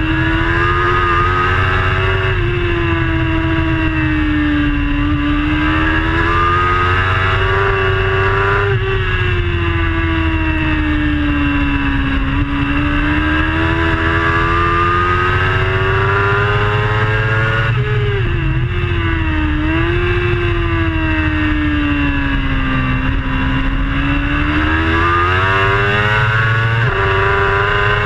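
Racing superbike's engine at high revs, heard from a camera mounted on the bike, its pitch rising and falling in long sweeps through the bends, with a few quick drops and wobbles where the rider shifts gear or closes the throttle.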